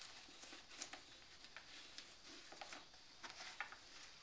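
Faint rustling of lacy fabric and a few light taps as a stretchy lace cover is pulled on over a Miche handbag by hand.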